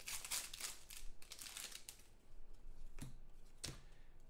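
Foil trading-card pack wrappers (2014 Panini Certified football) crinkling as they are torn open and handled, strongest in the first second and a half. Two short clicks follow about three seconds in.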